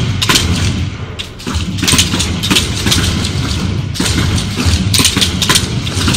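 Simulated M16 rifle fire from an Engagement Skills Trainer: several trainees' shots going off at uneven intervals, some close together, over a steady low rumble in the simulator room.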